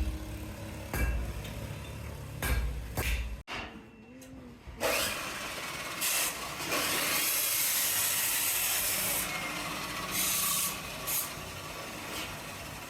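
A beat of music for the first few seconds, then a CNC laser cutter cutting steel sheet: a loud steady hiss from the cutting head.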